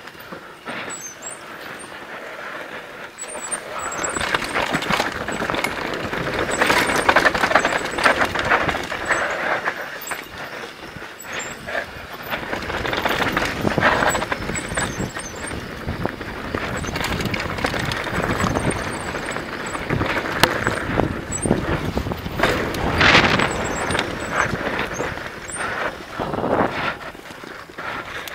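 Downhill mountain bike ridden fast over a bumpy dirt trail, heard from a helmet camera: wind rushing over the microphone, tyres on dirt and the bike rattling and knocking over the bumps. It gets louder about four seconds in and stays uneven with many sharp knocks.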